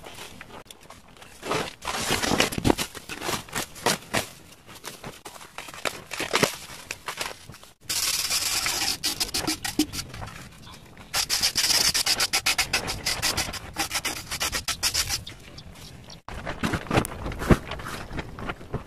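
Gritty rubbing and scraping of a hardened cement pot against sand, with many small scuffs and clicks. There is a louder, steadier hissing rub in the middle, and the sound breaks off abruptly twice.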